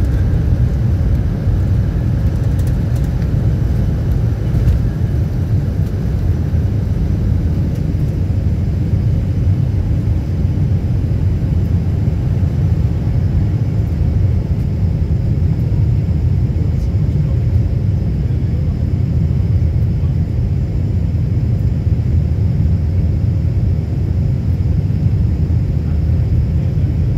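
Jet airliner's underwing turbofan engines heard from inside the cabin during takeoff and initial climb: a loud, steady deep rumble.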